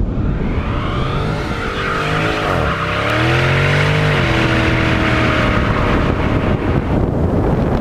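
2018 Dodge Challenger Scat Pack's 392 HEMI V8 held at high revs in a line-lock burnout, front brakes locked while the rear tyres spin and squeal in smoke. The engine note dips and climbs back about three seconds in.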